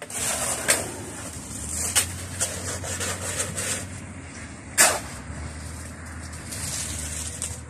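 A low steady engine hum under a hiss, with a few sharp knocks, the loudest about five seconds in.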